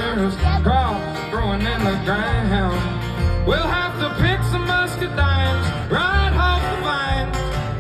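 Country song: a voice singing over plucked guitar with a steady, repeating bass line.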